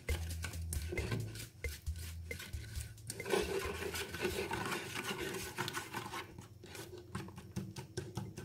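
Plastic spoon stirring and scraping a thick liquid glue mixture in a stainless steel bowl, with repeated clicks of the spoon against the metal. The scraping grows denser about three seconds in.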